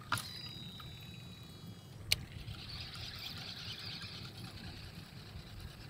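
A baitcasting reel cast, plausibly a Shimano Scorpion DC: a click as the spool is released, then the spool's high whine from its digital brake, falling slowly in pitch for about two seconds. A second click about two seconds in as the reel is engaged, then the reel is wound in with a steady hiss.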